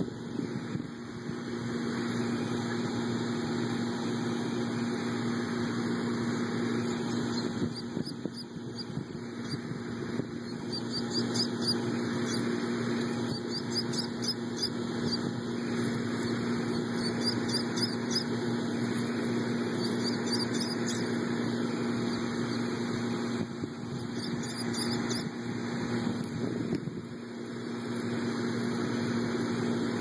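A steady motor hum with a low, even tone, and from about ten seconds in until near the end, runs of short high bird chirps above it.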